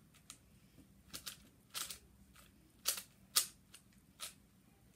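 Layers of a 4x4 puzzle cube being turned by hand: a string of sharp, irregular plastic clicks and snaps, the loudest two a little past the middle.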